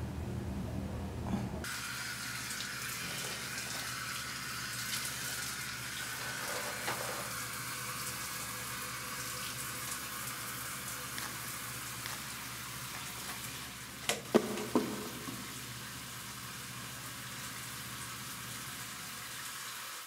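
Tap water running steadily into a basin while hands wash under it, starting suddenly about a second and a half in after a low hum. A few sharp knocks come about two-thirds of the way through.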